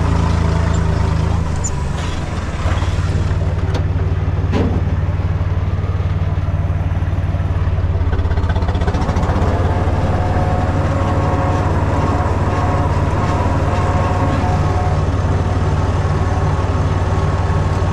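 Small farm tractor's engine running steadily as it drives, with a brief dip in level about two seconds in.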